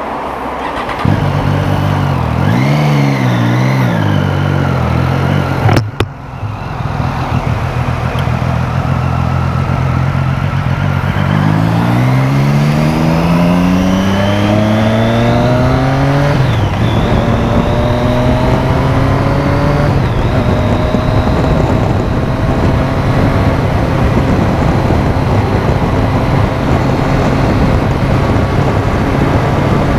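Motorcycle engine blipped up and down a couple of times, then accelerating hard with its pitch climbing steadily before dropping at a gear change about sixteen seconds in, then running at speed with the pitch slowly rising, under constant wind and road noise.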